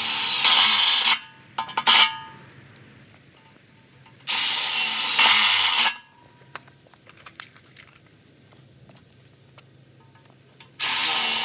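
Milwaukee M18 FUEL impact driver driving self-tapping screws into a metal pole in three runs of about one and a half to two seconds each, a few seconds apart. A brief blip of the trigger comes about two seconds in.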